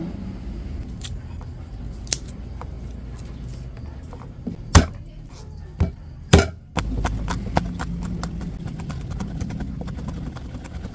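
Kitchen knife slicing garlic cloves on a cutting board: scattered knocks of the blade on the board, two louder ones about five and six and a half seconds in, then a run of quick light taps.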